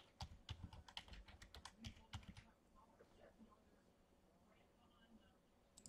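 Faint, quick run of computer-keyboard typing clicks for about two and a half seconds, then near silence.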